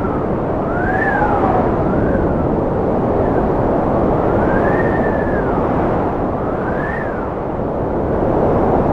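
Strong wind blowing with a steady rushing noise, and howling whistles that rise and fall in pitch about four times.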